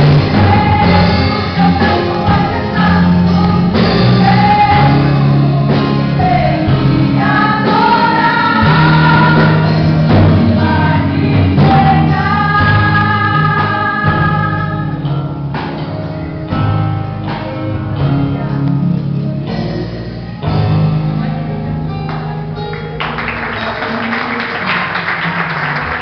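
A women's group singing a gospel song in unison with instruments behind them. The voices drop out a little over halfway and the instruments play on, and applause starts near the end.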